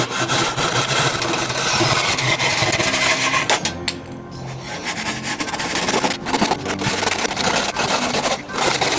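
Hand saw cutting through a wooden 1x2 board: a continuous rasping scrape of the blade in the wood, with a brief pause about four seconds in.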